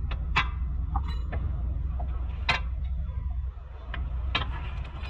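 Scattered sharp metal clinks and knocks as a drive shaft's splined end is handled and worked into the wheel hub, the loudest about two and a half seconds in, over a steady low hum.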